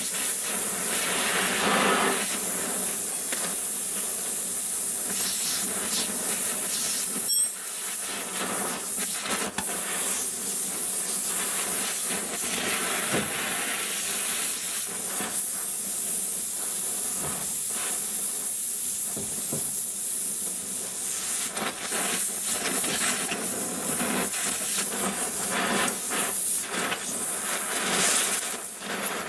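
Steady hiss of an oxy-fuel torch flame heating a cast exhaust manifold around a broken stainless bolt, to loosen it for removal. There is a brief dip about seven seconds in.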